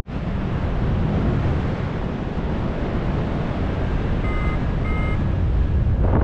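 Airflow rushing over the microphone in flight, steady throughout. About four and a half seconds in, two short electronic beeps, the second slightly higher, typical of a paragliding variometer signalling lift.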